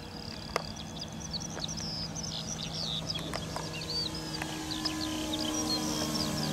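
Electric motor and 19x8 wooden propeller of a large radio-controlled Stampe SV4b biplane droning steadily in flight, growing gradually louder, while birds chirp and twitter throughout.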